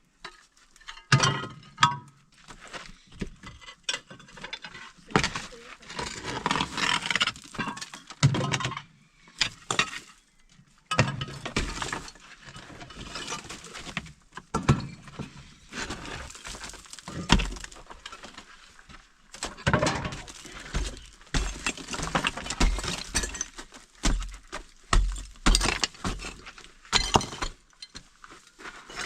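Demolition of an old house: irregular knocks and crashes of building material breaking, with debris clinking and clattering down.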